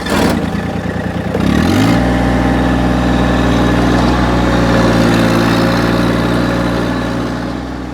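Massey Ferguson GC1725 tractor's three-cylinder diesel engine starting up. It catches with a rising note about a second and a half in, then runs steadily.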